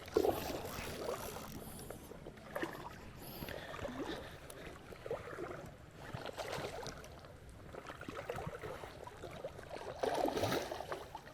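Water splashing and sloshing in a shallow creek in irregular bursts, with the loudest splash near the end.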